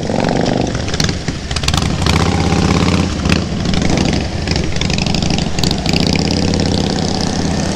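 Motorcycle engines running steadily at low speed in traffic: the rider's own Keeway V250 V-twin mixed with the Harley-Davidson V-twins just ahead.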